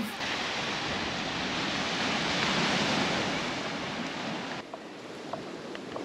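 Ocean surf washing onto a sandy beach: a wave swells and fades, then the sound drops suddenly to a quieter wash about four and a half seconds in.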